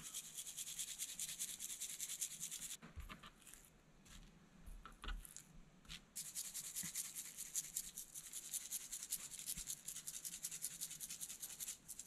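Hand spice grinder grinding seasoning onto raw meat, a faint rapid gritty crackle. It grinds for about three seconds, pauses with a few light taps, then grinds again from about halfway in.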